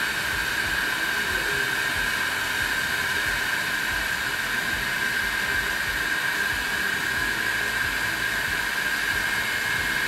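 Small replacement cooling fan in an Opus BT-C3100 battery charger, running at speed: a steady high whine over a rush of blown air. It blows hard, "like a steam locomotive", and the owner judges it to be spinning too fast and too loud.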